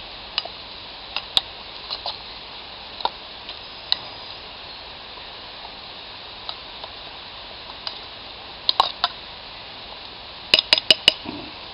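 A metal spoon clinking and scraping in a small metal pot as wilted greens are stirred, in scattered single clicks, then a quick run of about five clinks near the end, over a faint steady hiss.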